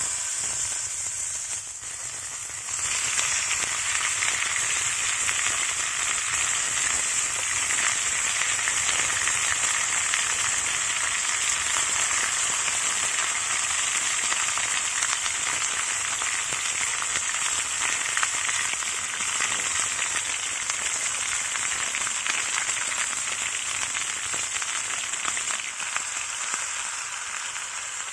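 Beef tenderloin frying in a cast-iron pan: a steady sizzle with fine crackling, louder from about three seconds in.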